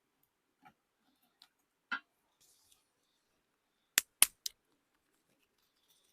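A few sharp clicks and snaps: faint ones in the first two seconds, then three loud ones in quick succession about four seconds in.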